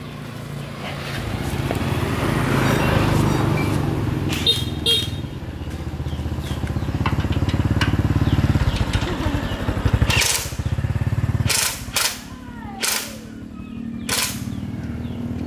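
Small motorcycle engine running unevenly, its revs rising and falling, the sound dipping several times in the second half, with a few sharp cracks.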